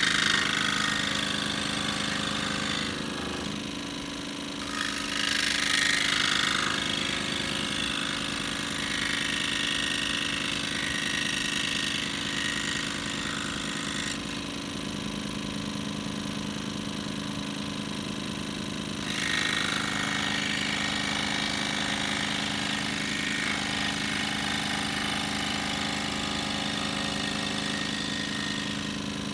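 Benchtop scroll saw running, its fine blade stroking rapidly up and down through a thick block of wood over a steady motor hum. A rasp of cutting swells and fades in stretches as the block is fed into the blade and turned along the curves.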